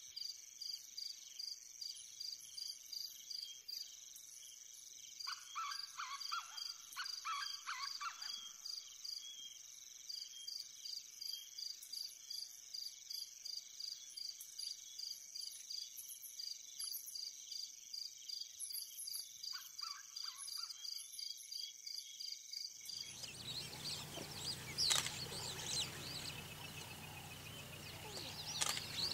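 Outdoor nature ambience: insects trilling, a steady high shrill with a pulsing chirp about three times a second, and a bird calling twice. About 23 seconds in it cuts to a different, louder ambience of high bird chirps over a low hum.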